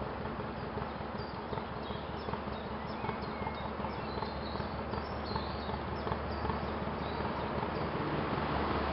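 Vintage working narrowboat's engine chugging steadily, growing a little louder toward the end as the boat approaches. Short bird chirps sound above it through the middle.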